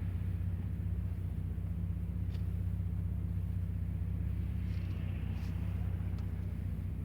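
Steady low rumble of a car heard from inside the cabin, a drone of engine and road noise, with a few faint, brief ticks over it.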